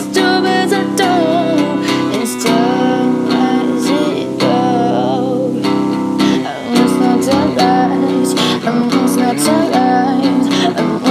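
Music: an indie rock song demo built on strummed acoustic guitar chords, with a wavering melody line carried over them.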